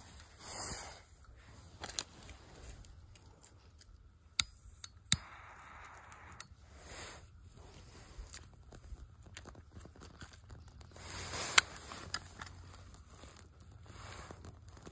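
Birch bark crinkling and rustling in the hands, with several sharp clicks from a metal flip-top lighter being opened and struck; the loudest click comes about two-thirds of the way through, shortly before the bark catches.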